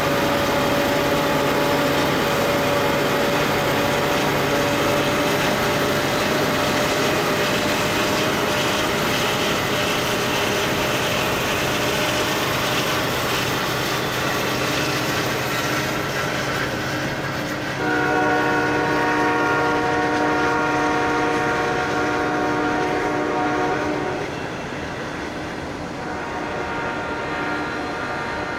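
Norfolk Southern freight train passing close: diesel locomotives running with a steady whine, then the wheels rolling on the rails. About two-thirds through, the locomotive horn blows a chord of several notes for about six seconds, which then carries on fainter.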